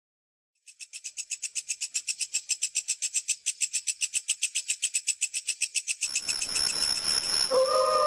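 A rapid, high-pitched pulsing trill of about eight pulses a second that grows louder. About six seconds in a hiss swells under it, and near the end held, eerie music tones begin.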